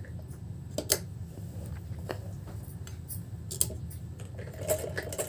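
Domestic sewing machine stitching slowly, a few separate clicks from the needle mechanism over a low steady hum, picking up speed again near the end.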